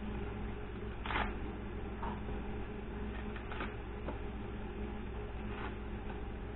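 A knife peeling a potato by hand: a few short, soft scrapes, the clearest about a second in, over a steady low electrical hum.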